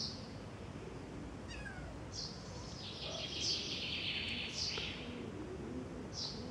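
Young kitten mewing with high, thin cries, loudest from about three to five seconds in, with short high chirps of small birds around it.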